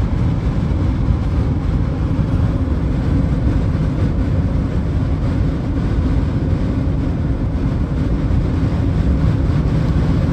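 Steady road rumble and tyre noise of a car travelling at speed, heard inside the cabin, heaviest in the low end.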